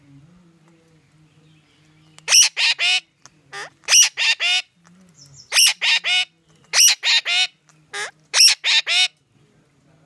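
Parakeet screeching: loud, harsh calls that drop in pitch, given in quick runs of about three, the runs repeating every second or so from about two seconds in until about nine seconds.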